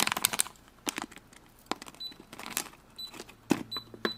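Plastic clicks of a toy cash register's buttons being pressed, with three short high-pitched electronic beeps from the register about two, three and nearly four seconds in.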